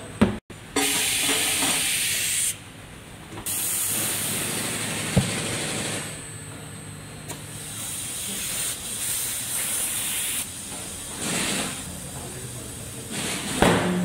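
Compressed air hissing from an air hose in several bursts of one to two seconds as the tyre is inflated. The longest and loudest bursts come in the first half. A single sharp knock comes just before the first burst.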